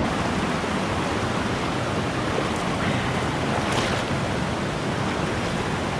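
Shallow river water rushing over rocks in a riffle: a steady, even rush of moving water.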